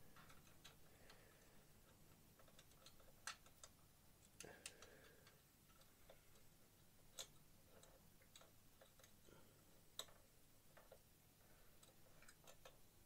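Near silence broken by faint, irregular small clicks and taps of a plastic kit undercarriage part and metal tweezers being worked into a wheel well, a few over the span.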